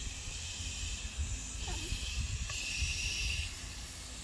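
Garden hose spray nozzle hissing as water sprays out, the spray louder for about two seconds starting about one and a half seconds in, over a low rumble.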